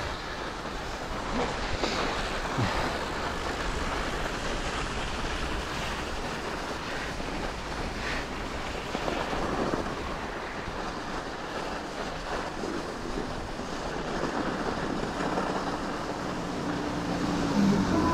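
Steady wind rumbling and hissing on the microphone outdoors.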